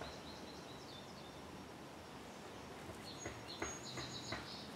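Faint outdoor background with a small bird chirping in quick runs of short high notes, once near the start and again in the second half. A few soft sharp taps or clicks come among the later chirps.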